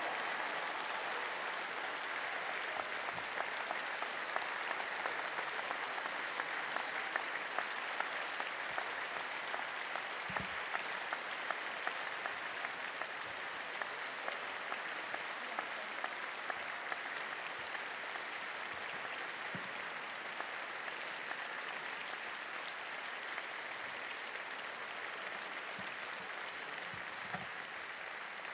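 Audience applause in a sports hall: many hands clapping steadily after a won point, easing off slightly toward the end.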